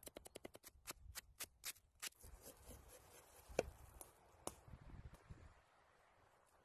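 Knife chopping on wood: a quick run of sharp taps against a wooden stump as garlic cloves are sliced, slowing over the first two seconds. Then a few heavier single cuts, the loudest about three and a half seconds in, as a corn cob is cut through.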